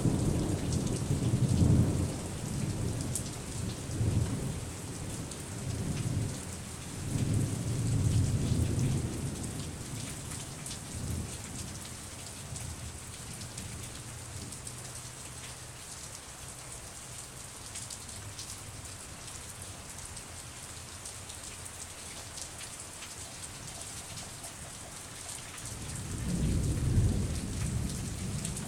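Thunderstorm: steady rain falling, with rolling thunder rumbling through the first ten seconds or so, then easing off to rain alone, before another long rumble of thunder builds near the end.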